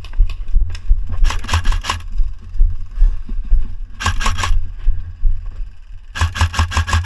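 AK-pattern airsoft electric rifle firing full-auto bursts, a rapid even clatter of about ten shots a second: a short burst about a second in, a brief one about four seconds in, and a longer continuous string from about six seconds in.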